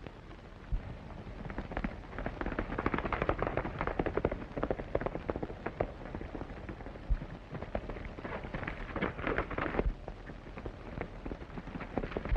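A horse galloping: a rapid, dense clatter of hoofbeats that comes in about a second and a half in and swells and eases in loudness, over a steady hiss.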